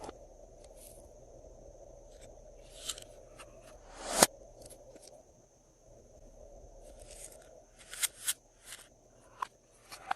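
Glossy slime being mixed and pressed, giving scattered wet clicks and pops. The loudest is a sharp pop about four seconds in, and a quick cluster of pops comes near the end.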